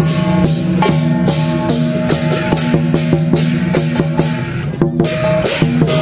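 Chinese lion dance percussion: a large lion drum beaten in a fast, driving rhythm with crashing brass hand cymbals ringing over it. The playing breaks off briefly about five seconds in, then picks up again.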